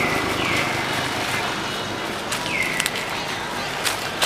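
Outdoor ambience of steady background noise with a faint murmur of voices, broken by three short whistled calls that drop in pitch and then hold, and a few sharp clicks in the second half.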